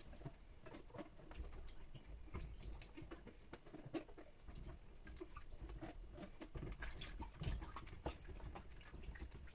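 Quiet, scattered small clicks, rustles and squeaks of peppers being handled and rubbed clean with water and vinegar.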